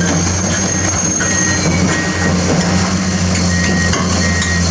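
A steady low machine hum with a hiss over it, and a short high beep repeating several times in the second half.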